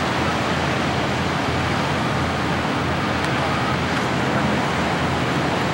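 Steady rush of surf breaking on the beach.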